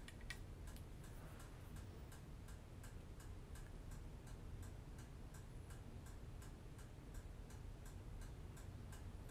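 Faint, evenly spaced ticking, a few ticks a second, over a low steady room hum.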